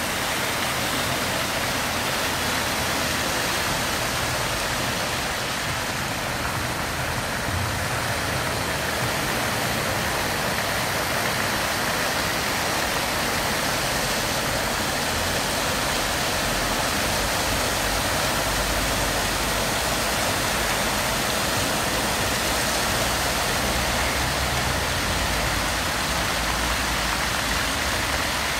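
Fountain water jets spraying and splashing into the basin: a steady, unbroken rush of falling water.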